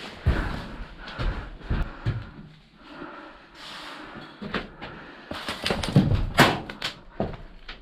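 Irregular knocks and thumps with rustling, and a denser run of loud sharp clicks and knocks about six seconds in.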